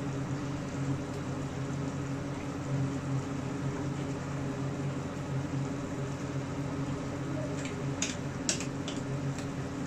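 Steady low kitchen hum over a pot of tinola soup heating on a gas stove, with a few light clicks near the end as a ladle stirs in the pot.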